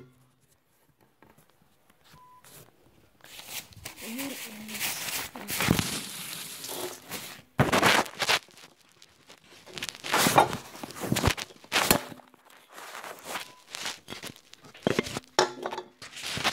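Near silence for about three seconds, then close rustling and rubbing handling noises with several sharp knocks at irregular intervals, as a phone is moved about and set in place.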